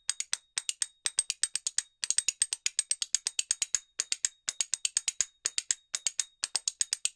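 Rapid run of sharp clicks or taps, several a second, in quick runs broken by short pauses.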